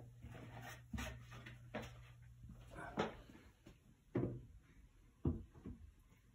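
Painted MDF shelf board knocking against the closet walls and its 1x2 wooden supports as it is tilted and fitted into place: about six separate knocks over the few seconds.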